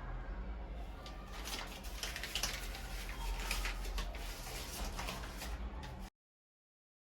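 Kitchen work sounds: scattered light clicks, taps and clatter over a low steady hum, cut off abruptly about six seconds in.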